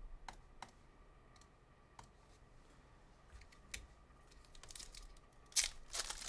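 Trading card pack wrapper crinkling and tearing open, with scattered light clicks and taps of cards being handled. The loudest rustling comes in a cluster about five to six seconds in.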